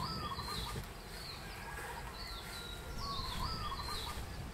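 A songbird singing the same short phrase twice, about three seconds apart: a few high chirps over a quick run of lower notes, over a low steady rumble of outdoor background noise.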